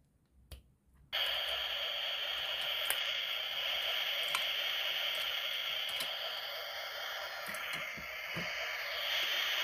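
A steady hiss that switches on suddenly about a second in, with a few faint clicks and low taps over it.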